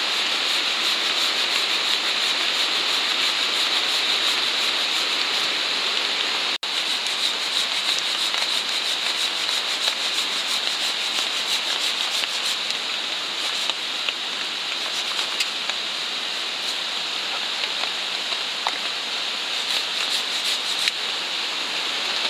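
Steady heavy rain, an even hiss with a fine patter of drops. It breaks off for an instant about six and a half seconds in.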